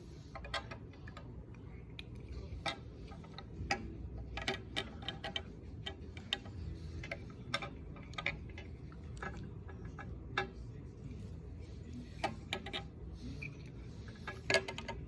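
Scattered light clicks and taps at irregular intervals over a low, steady background noise.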